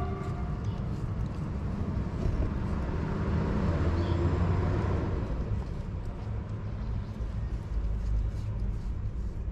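Street traffic: a vehicle passing, its noise swelling over a couple of seconds and fading, over a steady low rumble.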